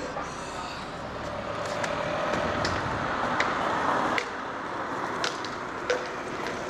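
Street ambience with a motor vehicle's engine running close by, growing louder until about four seconds in and then dropping away abruptly, with scattered sharp clicks.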